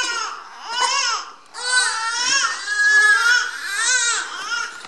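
Infant crying: a few short wailing cries, a brief pause about one and a half seconds in, then a longer unbroken stretch of crying.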